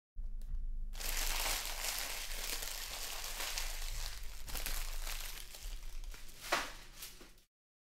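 Empty silver foil trading-card pack wrappers crinkling and crushing as they are scooped up in a hand, a dense crackle that starts about a second in, with one louder crunch near the end.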